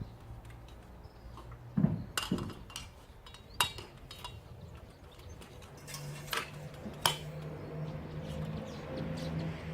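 A handful of sharp clinks and knocks, spaced irregularly a second or more apart, with a low steady hum coming in about six seconds in.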